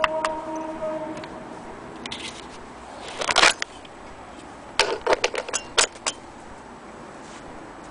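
Electrical cord and plug being handled against a sewing-machine cabinet: a sharp clink that rings briefly at the start, a scrape about three and a half seconds in, then a quick run of clicks and clatters.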